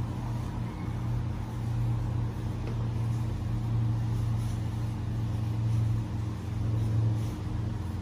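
Microfiber cloth rubbing in strokes across a car's painted hood, faint against a steady low droning hum that runs throughout.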